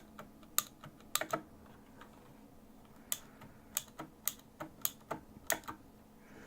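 Razer BlackWidow Ultimate 2016 mechanical keyboard with clicky Razer Green switches, keys pressed one at a time at an uneven pace, each giving a sharp, really loud clack. There is a pause of over a second near the middle, and the presses stop shortly before the end.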